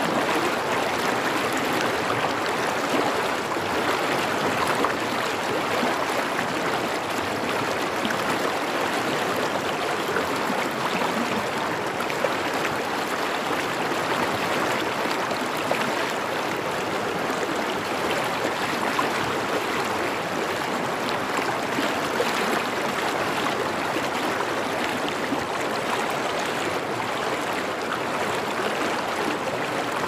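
Stream water flowing steadily, an even rushing with no change in level.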